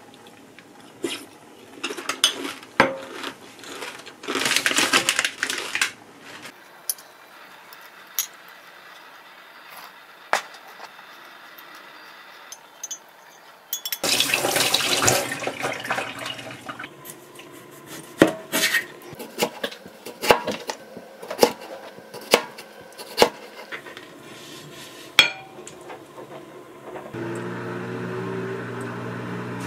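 Kitchen dishes and cutlery clinking: a metal spoon against a glass bowl and dishes set down on a counter give scattered sharp clinks and knocks. Twice there is a rough noisy stretch of a second or two, and a steady low hum comes in near the end.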